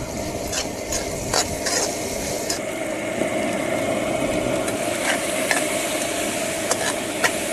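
Sliced pork sizzling as it stir-fries in a stainless steel wok on a portable gas stove. A metal ladle stirs it, scraping and knocking against the pan several times.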